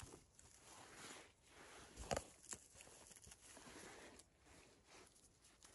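Faint rustling of a gloved hand in moss and leaf litter while handling mushrooms, with a sharp knock about two seconds in.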